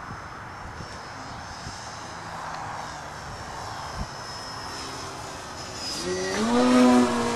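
Engine and propeller of a radio-controlled Extra 330SC aerobatic airplane, faint and distant at first. About six seconds in it throttles up with a rising pitch and gets loud as the plane comes close, then holds a steady tone.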